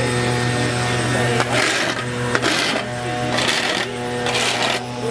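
Metal garden rake scraped across asphalt through wet leaves in about four strokes, roughly one a second, starting about a second and a half in, over a steady low hum.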